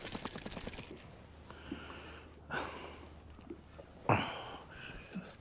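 A quick run of light rattling clicks as a just-caught smallmouth bass is handled with the lure still in it, then two short sniffs, the second with a soft low thump.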